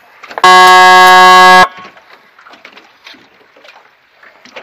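One long blast of a signal horn, about a second long, loud and steady, sounding a race start signal; faint water splashing follows.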